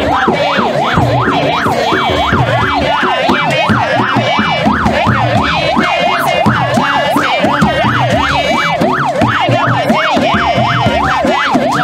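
Vehicle siren on a convoy's lead car sounding a fast yelp, its pitch sweeping up and down about three times a second without a break.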